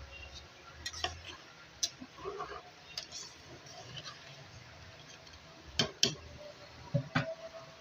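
Kitchen utensils clinking and knocking against cookware: a handful of sharp, irregular clicks, the loudest pair about six seconds in.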